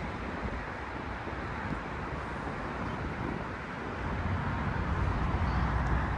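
Wind buffeting the microphone over a steady hiss of outdoor noise, the low rumble growing stronger about four seconds in.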